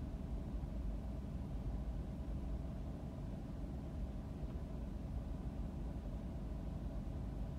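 Steady low rumble of a car idling in stopped traffic, heard from inside the cabin.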